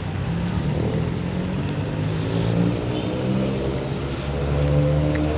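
Motor vehicle engine running, a low steady hum that settles slightly lower in pitch about halfway through.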